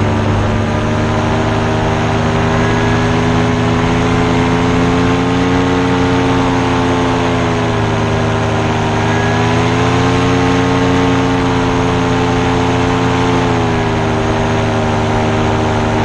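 Paramotor engine and propeller running steadily in flight, its pitch rising and falling slightly a few times, easing down near the end.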